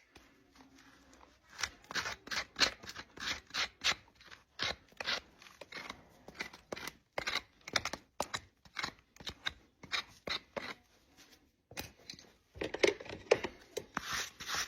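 Hoof-trimming tools working a draft horse's hoof: a quick run of short cutting and scraping strokes on the hoof horn, about two to four a second, getting busier near the end.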